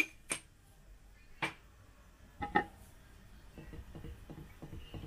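A spoon clinking sharply against a pan about five times, a couple of the clinks ringing briefly, then softer quick ticks of stirring near the end.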